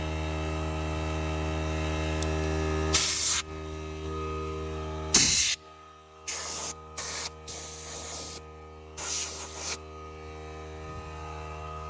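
Compressed air blowing dust off a motorcycle in about six short, loud hissing blasts, the longest about a second. A steady electric hum runs underneath and drops noticeably about three seconds in.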